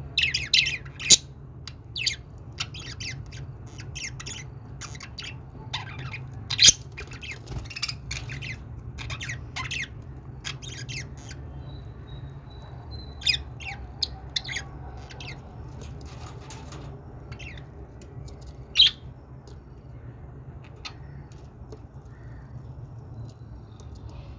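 Budgerigars chirping and squawking in rapid short calls, densest in the first ten seconds and sparser after, with a few much louder squawks. A steady low hum runs underneath.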